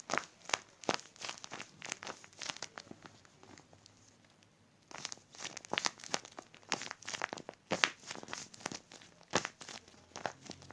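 Sharp crinkling and crackling of a crinkly squishy toy being squeezed and handled, in quick irregular bursts, with a quieter gap about a third of the way through.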